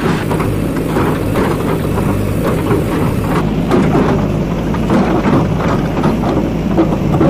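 JCB 3DX backhoe loader's diesel engine running steadily under load, with irregular scraping and knocking as the backhoe bucket works against the dirt.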